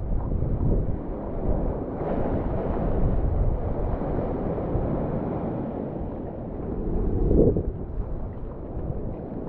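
Wind buffeting the microphone over rushing, splashing water while wingfoiling, with a louder gust or splash about seven seconds in.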